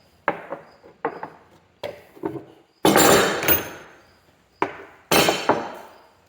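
Small metal hydraulic fittings and bushings being handled: a run of sharp clinks and knocks, with two longer metallic rattling clatters about three and five seconds in.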